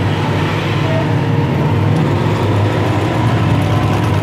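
Household sewing machine running steadily as it stitches a test seam through cloth.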